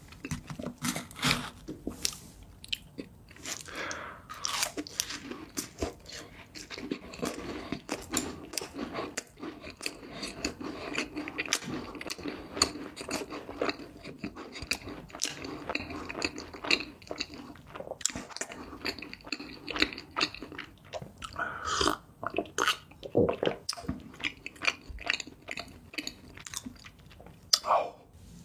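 Close-miked chewing of cream cake: a dense run of wet mouth smacks and small clicks.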